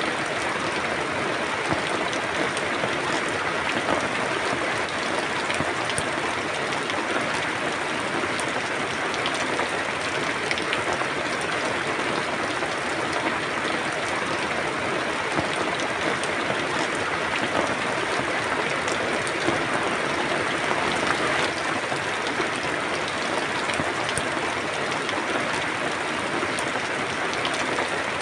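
Steady rain falling, an even hiss with many faint scattered drop ticks, unchanging throughout.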